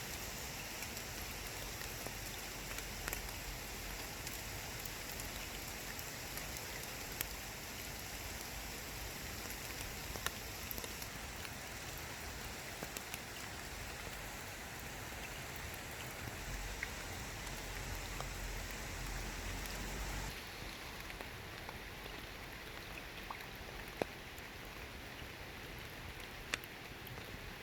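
Light rain falling, a steady hiss of drops on water and leaves with scattered single drips ticking sharply. The hiss grows a little quieter about twenty seconds in.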